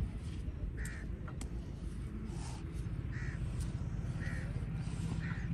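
A crow cawing, about four short calls roughly a second apart, over a steady low rumble with a few faint clicks.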